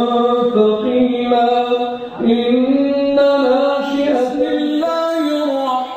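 Quranic recitation in tarannum style: a single unaccompanied voice holding long, ornamented notes that glide between pitches, with a short break for breath about two seconds in.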